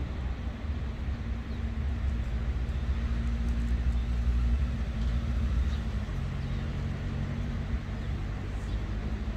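An engine running steadily with a low drone, its pitch shifting about six seconds in, over a steady hiss.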